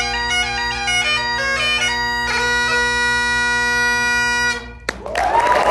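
Great Highland bagpipe playing the last notes of a tune over its steady drones, ending on a long held note that cuts off sharply about four and a half seconds in. A brief knock follows, then audience applause with a shout begins near the end.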